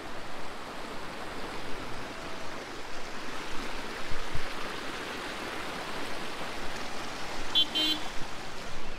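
Heavy rain and muddy floodwater rushing across a road and down the roadside, a steady rush of water. Near the end a car horn gives a short beep.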